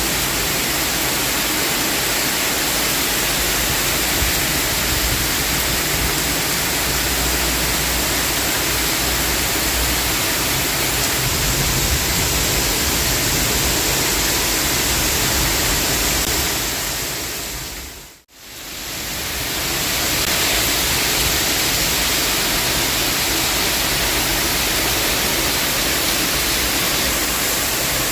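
Heavy rain pouring down in a severe storm, a steady dense hiss. About two-thirds of the way through it fades out completely for a moment and fades back in.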